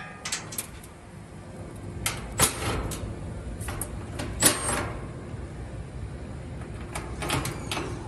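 Cordless drill/driver running in short bursts, backing screws out of an air-conditioning unit's wire fan guard, with the loudest bursts about two, four and a half and seven seconds in.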